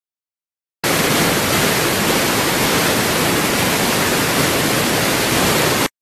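A loud, even burst of static-like hiss that switches on abruptly about a second in and cuts off just as abruptly near the end, with dead silence either side.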